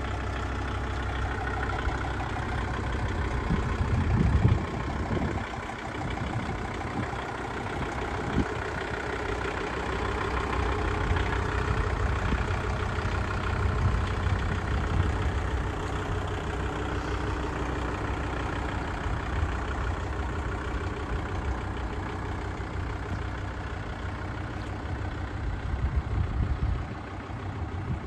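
Kubota L5450 tractor's diesel engine running steadily at idle, with brief louder swells about four seconds in and again near the end.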